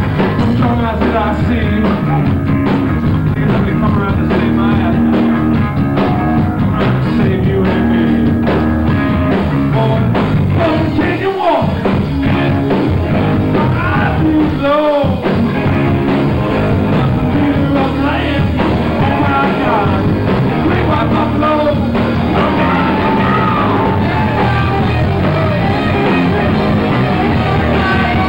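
Live rock band playing loudly: amplified electric guitar, with voices singing into microphones. The bass and drums drop out briefly twice, about eleven and fifteen seconds in, while the singing goes on.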